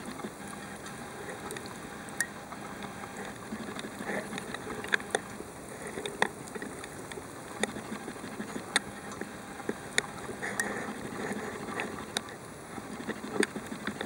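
Underwater ambience picked up by a camera held under the sea: a steady hiss with scattered sharp clicks and crackles at irregular intervals.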